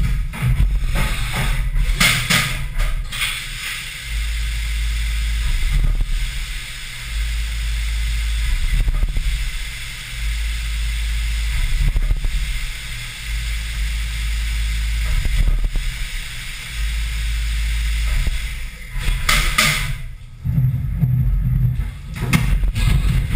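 Haas VF-3SS vertical CNC mill cutting aluminium with flood coolant spraying, heard from inside the machine enclosure as a steady hiss over a low hum. The cutting stops near the end as the spindle pulls back.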